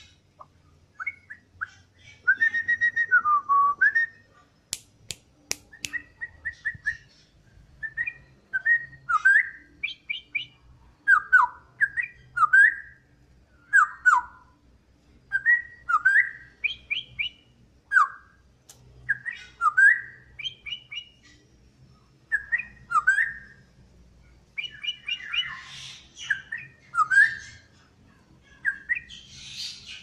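Straw-headed bulbul singing: loud, short whistled phrases of gliding notes about once a second, with a few sharp clicks about five seconds in.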